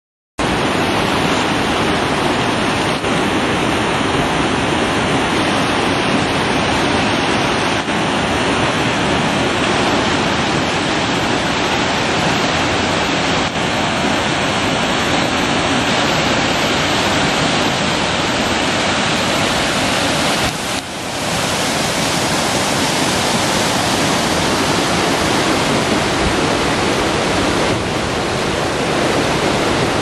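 River water rushing and splashing over boulders and small cascades, a loud, steady rush that starts abruptly and dips briefly about two-thirds of the way through.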